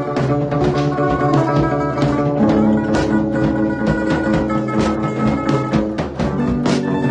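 A band playing a song, with guitar over a steady drum-kit beat and held pitched notes.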